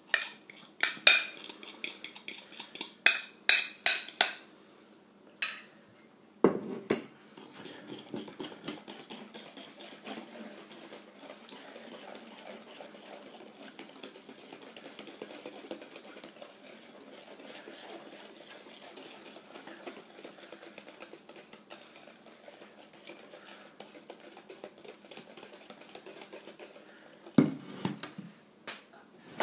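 A metal wire whisk and utensils against glass mixing bowls: a quick run of sharp clinks, then a knock, then a long steady whisking sound as melted chocolate is beaten into sugared egg yolks, with another knock near the end.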